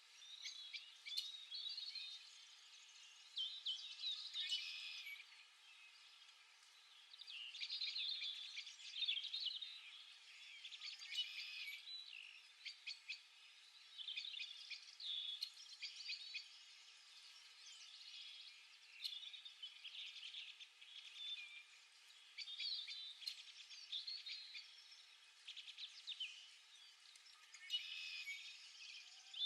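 Small songbirds chirping and twittering in quick, high bursts that come and go every second or two, faint overall.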